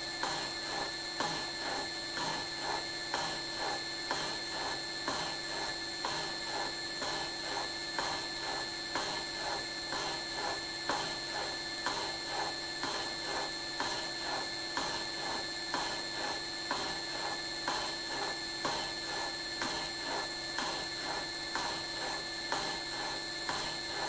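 Bridgeport mill slotting head running, its ram stroking the cutter up and down to cut a keyway in a motor coupler. There is a steady motor whine and a regular thump with each stroke, a bit more than once a second.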